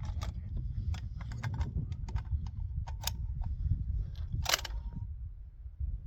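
Bolt-action rifle being worked by hand: a string of small metallic clicks and rattles, with one louder sharp metal clack about four and a half seconds in, over a steady low rumble.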